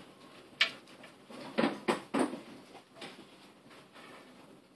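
Multimeter test leads being handled and fitted together: several short plastic clicks in the first half, then quieter rubbing as an accessory lead is pushed onto a probe.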